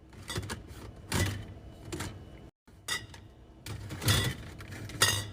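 Grocery items being handled and set into a fridge: a series of light knocks and clatters about a second apart, broken by a moment of dead silence about two and a half seconds in.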